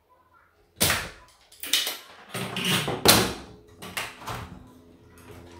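Tools and a circuit board handled on a repair bench: a run of about seven knocks and scrapes, starting about a second in, while a diode is being taken off a TV's circuit board.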